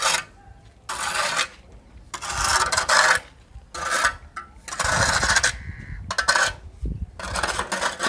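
A pipe being dragged by hand over the ground in repeated pulls, scraping in short strokes about once a second.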